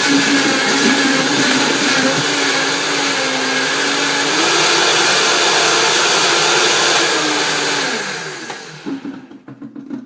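Vitamix blender motor running at speed, blending a head of romaine lettuce with water; its pitch steps up about four seconds in. Near the end it is switched off and the motor winds down, its pitch falling.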